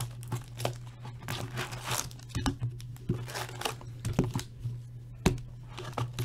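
Hockey card packs being torn open by hand, with irregular crinkling and tearing of the pack wrappers and handling of the cards.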